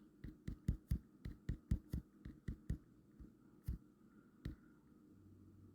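Keys being tapped while typing in a password: a quick run of sharp taps, about four a second, then two slower taps a little later.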